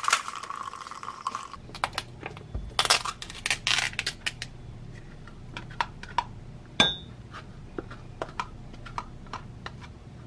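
A spoon scraping and tapping yogurt out of a plastic cup into a glass bowl: scattered light clicks and crinkles, with one clear ringing clink against the glass about seven seconds in.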